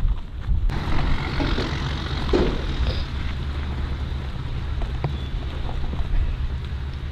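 A steady low engine drone with wind noise on the microphone.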